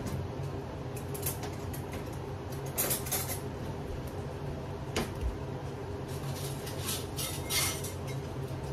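Scattered clinks and clatters of kitchen utensils against glass canning jars and pots during home canning, over a steady low hum.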